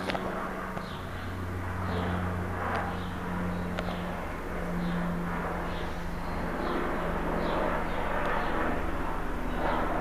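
Hunter Original ceiling fan's cast-iron oil-bath motor running on low speed: a steady low hum. A faint high chirp repeats a little more than once a second over it.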